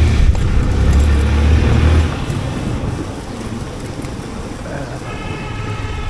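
Motorcycle on the move, with steady road and wind noise on the microphone. A loud low rumble drops away about two seconds in, and a brief pitched tone sounds near the end.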